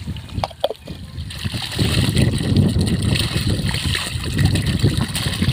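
Water pouring from a PVC irrigation pipe outlet into a shallow muddy pool, with splashing as hands scoop it up. A few sharp splashes come in the first second, then a steady rushing from about a second and a half in.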